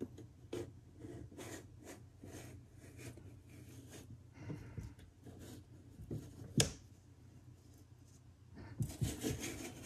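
Plastic iMac opening wheel rolling along the edge of a Late 2012 21.5-inch iMac's display, slicing through the screen adhesive: a faint run of soft scratchy crackles. One sharper click comes about two-thirds of the way through, and the scraping gets busier near the end.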